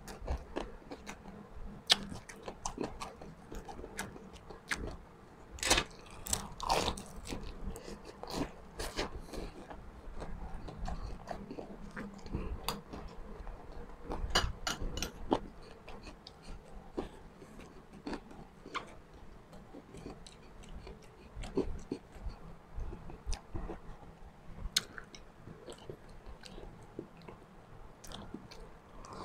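A person biting and chewing crunchy food, with irregular crisp crunches throughout.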